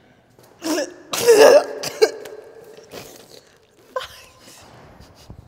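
A person coughing: a short cough just under a second in, then a longer, louder one about a second and a half in.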